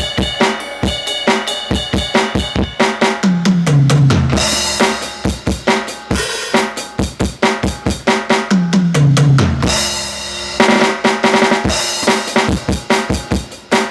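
Aroma TDX15S electronic drum kit playing its metal kit preset: a fast, steady kick-and-snare groove with two fills that run down the toms, each ending on a crash cymbal.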